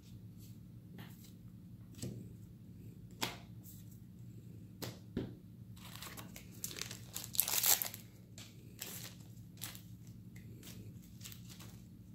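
Weiss Schwarz booster pack's foil wrapper crinkling and being torn open, loudest about seven to eight seconds in. Scattered light clicks and rustles of trading cards being handled come before and after, over a low steady hum.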